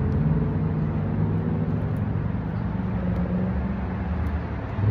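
Steady low hum of an idling car engine, with a few faint light clicks.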